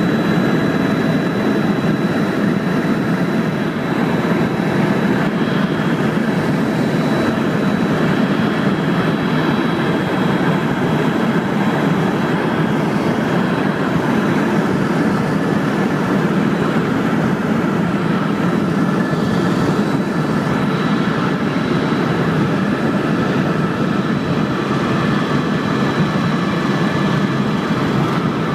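Helicopter in flight: a steady engine and rotor drone with a few faint high whining tones held above it.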